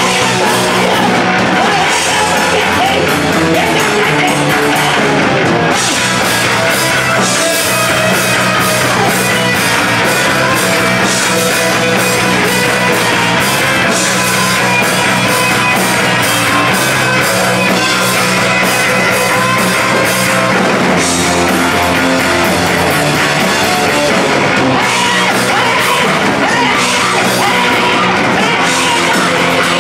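A rock band playing loud live: electric guitars and a Tama drum kit, with a woman singing into a microphone over them.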